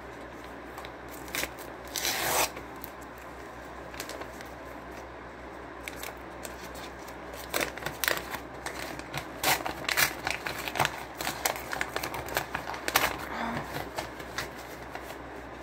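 A taped paper envelope being torn and pulled open by hand: a short rip about two seconds in, then a run of quick crinkling and tearing sounds from about halfway through until near the end.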